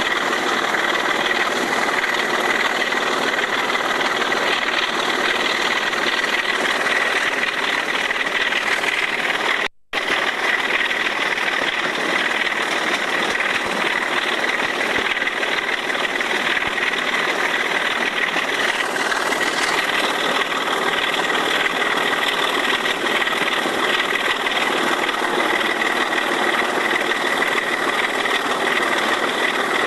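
Sulzer 6LDA28 six-cylinder diesel engine of the Class 25 locomotive D5217 working hard at full power, heard from the locomotive's own side window, a steady loud drone with a high tone held above it. The sound cuts out for a fraction of a second about ten seconds in.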